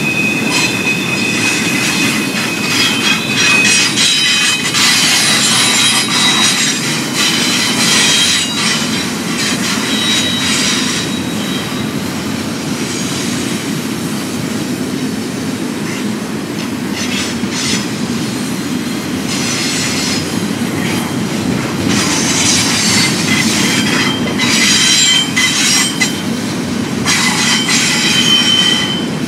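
Double-stack intermodal well cars of a freight train rolling past, a steady rumble of wheels on rail, with high steel-wheel squeal coming and going as the cars pass.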